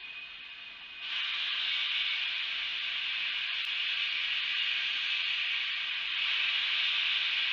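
Steam hissing from narrow-gauge K36 steam locomotive No. 489, a steady hiss that gets louder about a second in and again near the end.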